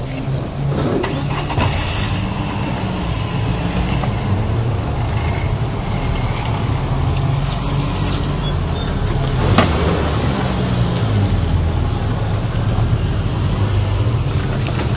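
A car engine running nearby, a low steady drone whose pitch shifts now and then. A few sharp knocks sound over it, the loudest about nine and a half seconds in.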